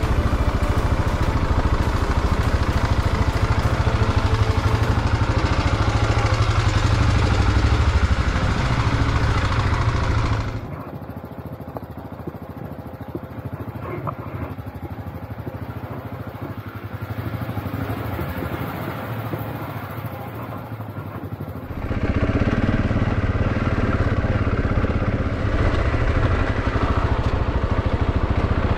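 Husqvarna 701 enduro's single-cylinder engine running steadily at low revs with a deep low rumble. For about eleven seconds in the middle it is quieter and thinner, without the low rumble, before the full sound returns.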